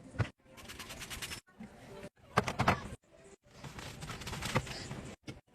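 Food packaging and plastic containers being handled and set down: a series of sharp clicks and taps with rustling in between, broken by several abrupt cuts.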